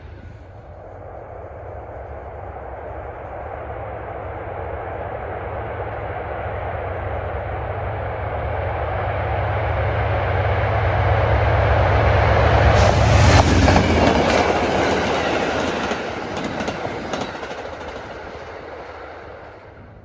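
A train passing by: its rumble builds steadily, is loudest a little past the middle with a run of sharp wheel clicks over the rail joints, then dies away.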